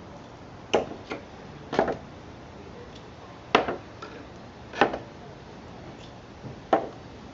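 Hammer knocking on the nails of a salvaged wooden pallet board, about six sharp blows spaced irregularly, a fraction of a second to two seconds apart. This works the nails loose so that they can be pulled.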